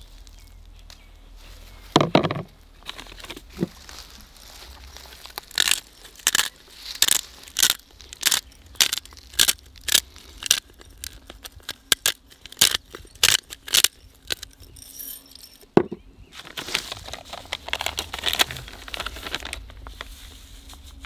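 Pepper mill grinding pepper over raw beef chunks in a kazan: a quick run of short crunching twists, about two a second, after a single knock about two seconds in. Near the end a softer rustle as salt is pinched and sprinkled over the meat.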